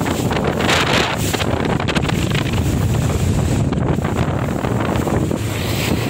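Motorboat with a Mercury engine running steadily at speed, water rushing along the hull and wind buffeting the microphone.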